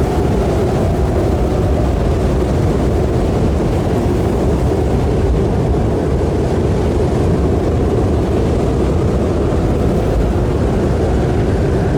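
Nissan Frontier pickup driving at a steady speed, with an even rush of engine and tyre noise and a faint steady engine hum.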